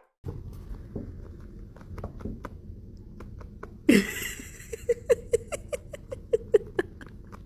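A black kitten pawing and clawing at a fleece blanket on a wooden table: a sudden short noise that drops in pitch about four seconds in, then a run of light clicks and scratches, about four a second.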